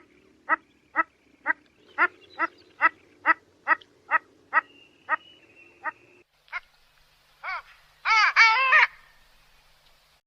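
Ducks quacking: an even run of short quacks, about two a second, for the first six seconds, then a few single quacks and a loud burst of several overlapping quacks about eight seconds in.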